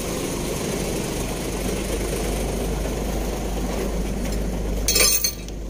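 Heavy truck's diesel engine idling steadily, with a short sharp noise about five seconds in.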